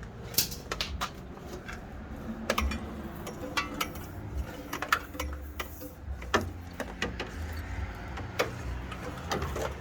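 Irregular light clicks and knocks of things being handled, over a low steady background hum.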